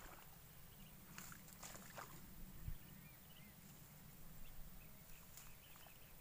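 Near silence: faint outdoor ambience with a low rumble, a few soft clicks and rustles, and a couple of faint short chirps about halfway through.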